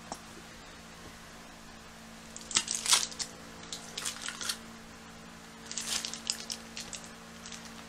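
Aluminium foil and wax paper wrapping crinkling and rustling around a burrito as it is handled and opened. This comes in two spells, about two and a half seconds in and again about six seconds in, over a faint steady hum.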